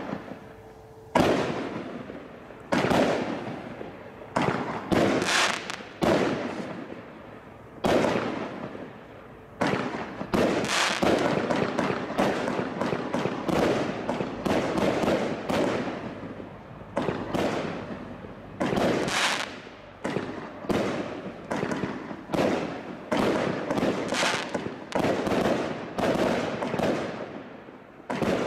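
Bright Star Fireworks 'Cosmic Chaos' 49-shot barrage cake firing. Sharp aerial bursts come one after another, about one a second and sometimes in quicker pairs, each bang fading out before the next.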